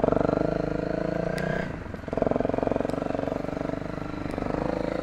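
Trail motorcycle engine pulling under throttle. It eases off briefly about two seconds in, then picks up again and holds steady.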